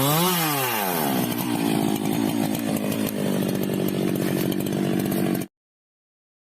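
Chainsaw engine revving, its pitch swinging up and down, then settling after about a second to a lower, steady running note. The sound cuts off abruptly to silence near the end.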